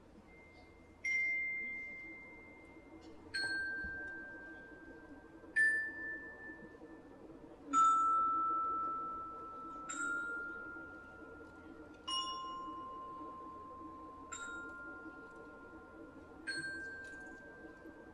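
Eight single notes struck slowly on a metal-barred mallet percussion instrument, about one every two seconds, each ringing on until the next. The pitch wanders mostly downward and rises again over the last two notes.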